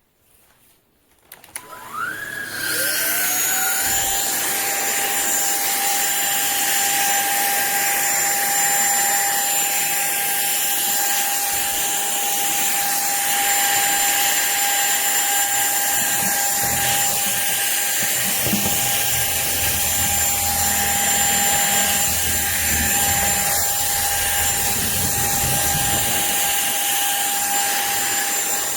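SunSare cordless stick vacuum switching on about two seconds in. Its motor whine rises in pitch and settles within about a second, then it runs steadily at a high pitch.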